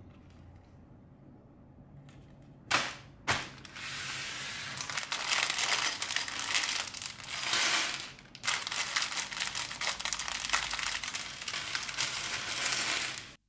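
Thin clear plastic Lego parts bag being torn open and crinkled by hand: two sharp rips about three seconds in, then steady crinkling and rustling as the bag is handled and the loose bricks inside shift.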